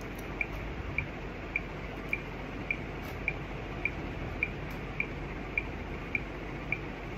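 Countdown timer ticking steadily, a short high tick a little under twice a second, over faint room noise.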